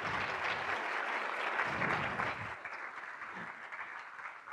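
Audience applauding, strongest in the first two seconds or so and dying away toward the end.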